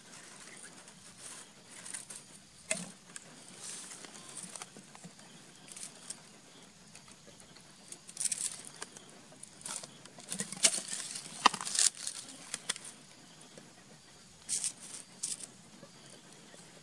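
Irregular small clicks and rustles of pebbles and cloth as a diapered baby monkey crawls over stony ground, a few sharper clicks about three seconds in and near twelve seconds.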